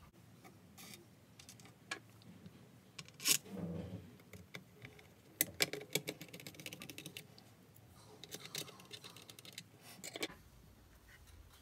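Hands working on a 3D-printed plastic handheld case: faint scattered clicks and taps, a sharp click about three seconds in, and a quick run of small ticks about five and a half seconds in.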